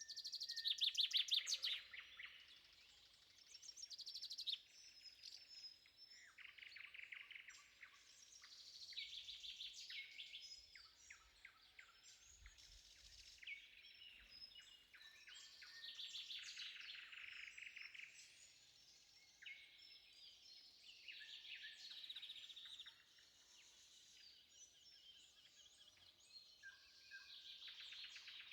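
Songbirds singing at dawn: a run of trilled song phrases repeating every few seconds, the loudest about a second in, with fainter chirps between them.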